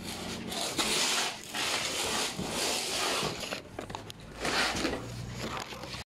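A large cardboard box holding a washing machine scraping across concrete in several long drags of about a second each.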